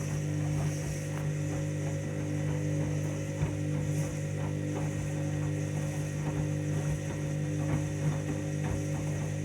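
Washing machine running at the end of its main wash, coming up to the interim spin: a steady hum with faint, irregular clicks and rattles.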